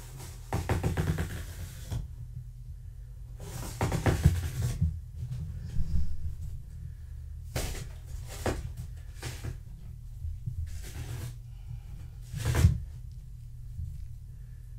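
Repeated bursts of rattling and knocking, some in quick runs of clicks, the loudest a sharp clatter near the end, over a low steady hum.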